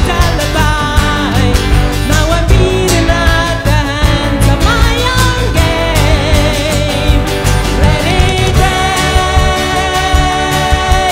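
Live band music: electric guitars, bass and drums playing with several voices singing.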